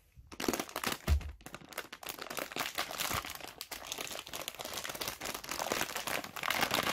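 Crinkling and rustling of the plastic anti-static packaging around a graphics card as it is handled and unwrapped, with one thump about a second in.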